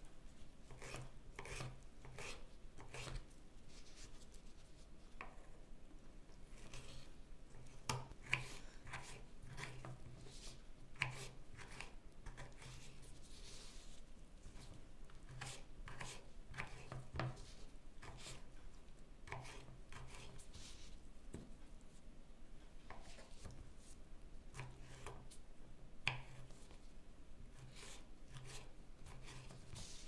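Kitchen knife slicing and chopping tomatoes on a wooden cutting board: a run of irregular soft cuts, with the blade tapping the board, and a few sharper, louder knocks among them.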